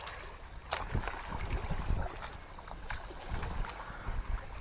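Sea washing against the rocks below, with wind rumbling on the microphone. Faint clicks and rustles come from hands wrapping a peeled crab bait onto a hook with bait elastic.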